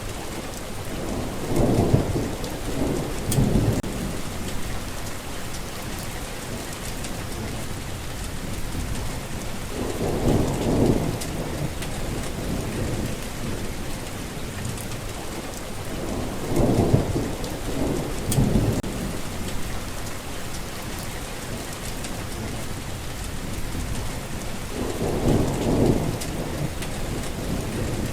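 Steady rain falling, with low rumbles of thunder swelling up four times, each lasting a second or two.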